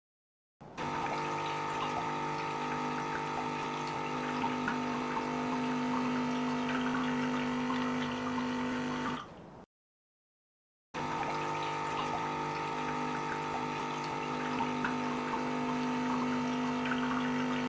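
Electactic CM8032S espresso machine's pump running while water comes out during its automatic cleaning cycle: a steady hum over splashing water. It stops abruptly a little past halfway and starts again about a second and a half later.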